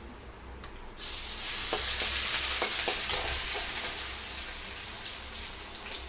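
Crushed garlic and green chilli dropped into hot oil with spluttered mustard seeds and cumin for a tadka, in an aluminium kadhai: a loud sizzle starts suddenly about a second in and slowly dies down. A few knocks of a steel ladle against the pan come in the loudest part.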